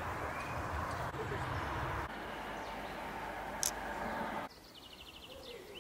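Forest outdoor ambience. A steady rushing noise gives way, about four and a half seconds in, to a quieter background in which a small bird sings a short, rapid trill of repeated high notes.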